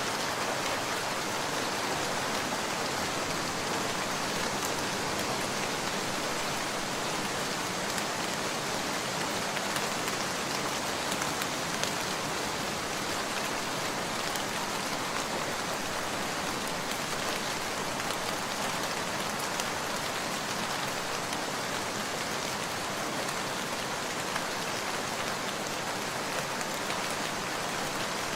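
Heavy rain falling steadily: an even hiss with scattered single drop ticks.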